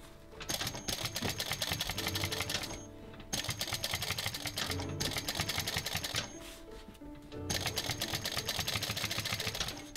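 Industrial flatbed sewing machine stitching in three runs of rapid needle strokes, stopping briefly between them, over background music.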